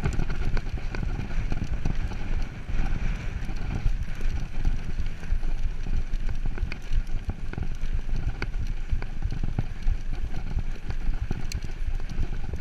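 Mountain bike rolling over a loose gravel-and-dirt trail: the tyres crunch over the stones with a continual patter of small clicks and rattles, over a steady low rumble.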